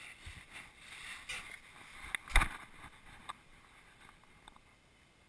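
Knocks and scuffing on a camera as a dog noses at it right against the lens, with scattered taps and one loud bump about two and a half seconds in.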